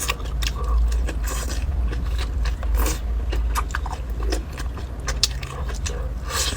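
A person chewing and biting food close to the microphone: a run of irregular wet crunches and clicks.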